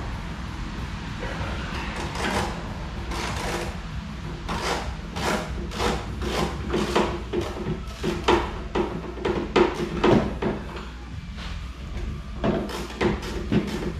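Irregular clanks, knocks and scrapes of hand tools and metal parts as an engine is worked loose from a go-kart frame, coming in quick clusters with brief pauses.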